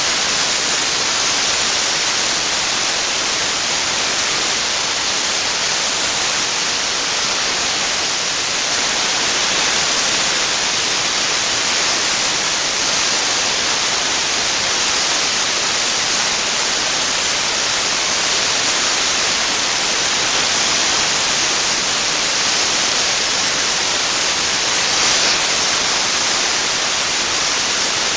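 Dry-ice blasting nozzle's compressed-air jet hissing loudly and steadily without a break.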